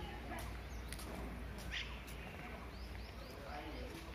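Birds chirping and calling in short scattered notes over a low steady hum, with faint distant voices.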